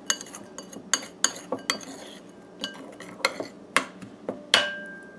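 Metal spoon stirring a thick curry paste in an enamel bowl, scraping and clicking irregularly against the bowl. Near the end comes one louder clink that rings on briefly.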